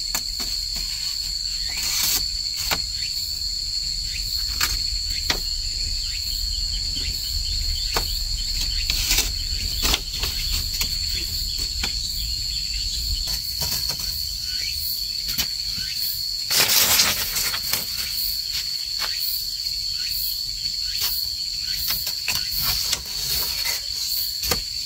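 Steady high-pitched insect chorus (crickets or cicadas) in two constant tones, with scattered knocks and clacks of bamboo poles being handled and fitted into a shelter frame. A louder rustle lasting under a second comes about two-thirds of the way through.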